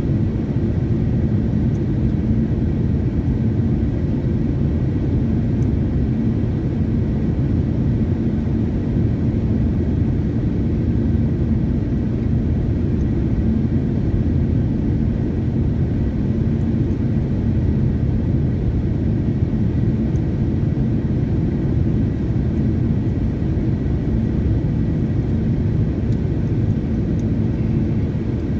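Steady low rumble inside a moving car's cabin: tyre and engine noise while cruising on an asphalt road.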